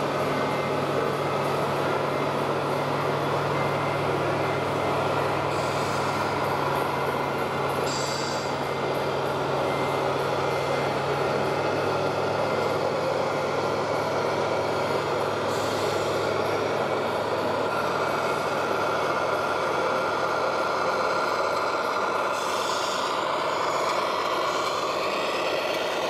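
RC model truck's engine sound module playing a diesel truck engine running steadily, with a brief hiss about eight seconds in.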